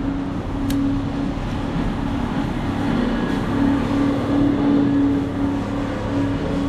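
A motor vehicle's engine running close by, a steady hum that swells and dips, over the steady noise of a wet city street.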